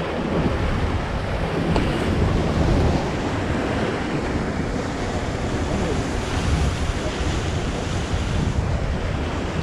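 Sea surf washing against rocky cliffs, with wind buffeting the microphone in a steady low rumble.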